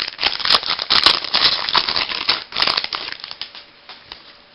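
Baseball cards being handled and flipped through: quick papery rustles and flicks, thinning out to a few faint ticks after about three seconds.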